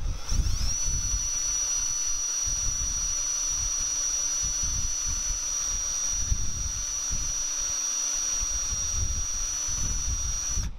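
Cordless drill spinning a felt buffing wheel against a copper-nickel mokume gane bowl: a high, steady motor whine that rises in pitch as the drill spins up at the start and cuts off near the end.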